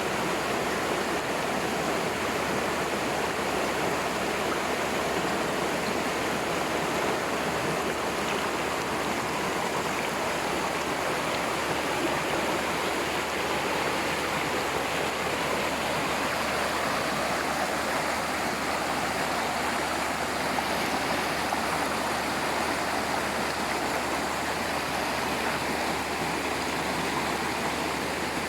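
Waterfall and its stream splashing and rushing over rocks: a steady, unbroken roar of falling water.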